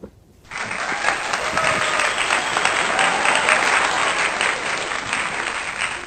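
Applause: a crowd clapping, starting about half a second in and fading away near the end.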